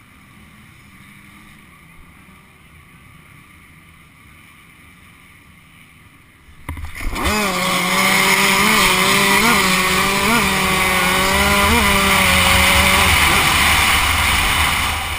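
Dirt bikes at a race start: a faint low engine sound for the first six and a half seconds, then a sudden loud burst as the rider's KTM 105 two-stroke launches and revs hard under the helmet camera. Its pitch jumps up briefly four times, over rushing wind and exhaust noise.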